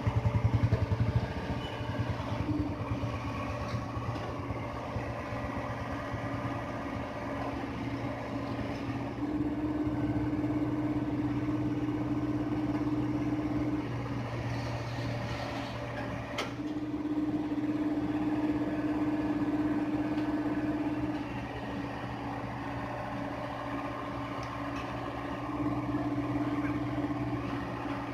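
Hyundai hydraulic excavator's diesel engine running steadily, growing louder for a few seconds at a time, three times over. A single sharp click comes about sixteen seconds in.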